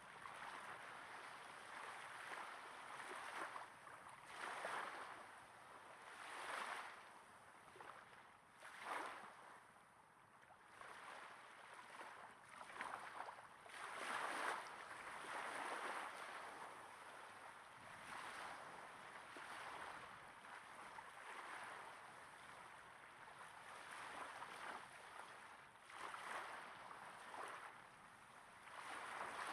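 Small waves breaking gently on a sandy beach, heard from about 30 cm away: soft washes of water coming in every couple of seconds, some swells louder than others.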